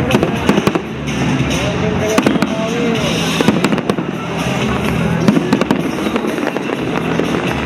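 Aerial fireworks shells bursting and crackling in quick succession, with music playing along.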